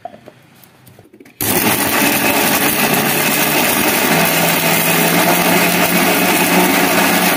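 An electric mixer-grinder (mixie) has its lid fitted with a few light knocks. About a second and a half in, the motor starts abruptly and runs steadily, dry-grinding sautéed drumstick leaves, chana dal, onion and red chillies with rock salt, before any water is added.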